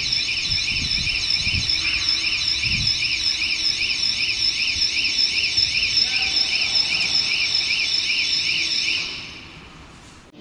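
Warning alarm on a moving electric die transfer trolley, a repeating warbling tone of about two sweeps a second, fading out near the end.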